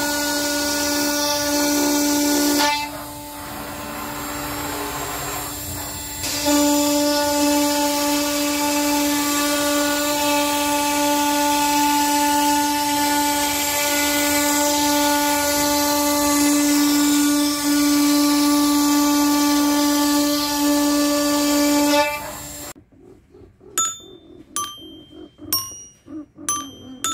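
CNC router spindle whining at a steady pitch while its bit cuts into a board. The whine drops for a few seconds about three seconds in, then stops suddenly about 23 seconds in. It is followed by a run of bright ringing notes: a toy xylophone's coloured metal bars struck by wooden beaters that a pinned drum mechanism drives.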